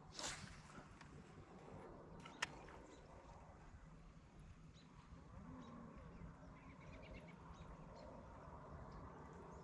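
Near silence: faint outdoor ambience, with a brief knock right at the start and a single sharp click about two and a half seconds in.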